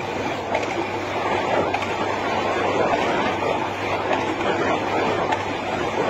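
Running noise of a moving train heard from the front of the locomotive: a steady rumble and rattle of the train travelling along the track, with a low steady hum underneath.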